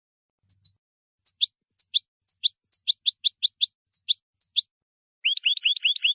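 European goldfinch singing: sharp, high chirps about two a second, breaking about five seconds in into a fast twittering trill.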